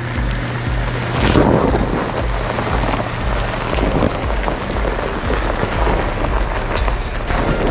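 Steady rushing road and tyre noise of a Jeep Wrangler JKU Rubicon driving on a dirt trail, with a regular low beat repeating about twice a second underneath and a few sharp ticks near the end.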